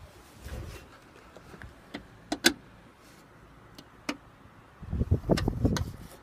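A few sharp, light clicks and knocks, then a stretch of low rumbling with more clicks about five seconds in; no engine is running.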